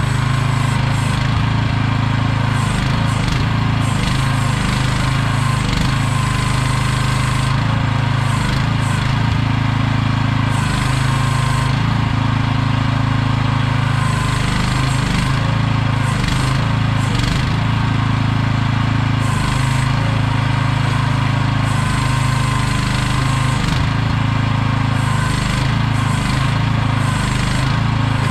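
AGT QH12R mini excavator's small engine running steadily as the machine is operated.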